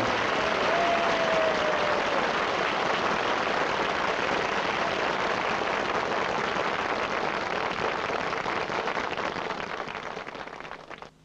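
Theatre audience applauding steadily, the clapping fading away over the last few seconds and then cutting off. A held final note of the band dies out in the first two seconds.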